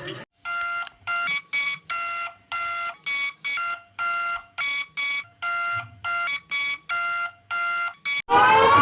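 Electronic alarm tone of a mock Emergency Alert System alert, beeping about twice a second in an uneven pattern of longer and shorter beeps. Near the end a siren starts, wailing with a slowly rising and falling pitch.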